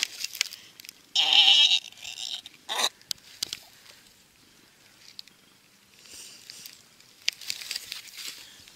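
A person's voice crying out, wordless: one loud, wavering cry about a second in and a short one just before the three-second mark, then faint rustling and handling noise.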